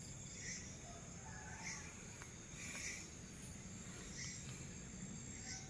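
Night-time chorus of forest insects: a steady high-pitched drone, with a short chirping call repeating about once every second and a bit.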